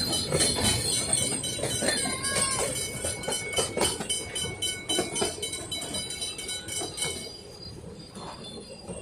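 Puffing Billy's narrow-gauge carriages rolling past, their wheels clacking over rail joints under a thin high squeal. It grows quieter and fades away about seven seconds in.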